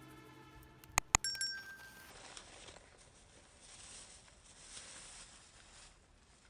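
Two sharp clinks about a second in, followed by a short ringing tone that dies away within a second, then only faint background hiss.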